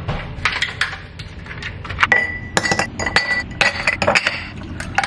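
Ice cubes dropped one after another into a glass cup, clinking and knocking against the glass. A thin high ring lasts about a second from about two seconds in.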